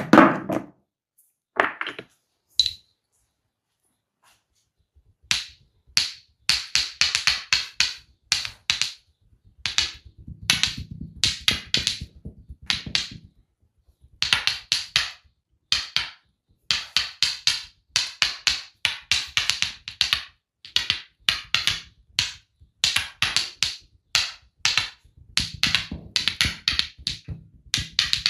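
Percussive massage: rapid runs of tapping and slapping strokes on the body, in quick rhythmic bursts with short breaks, after a pause of about three seconds near the start.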